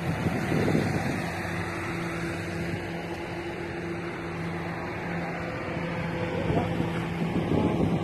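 A steady low engine drone with a constant hum, over a rushing haze of wind and open-air noise.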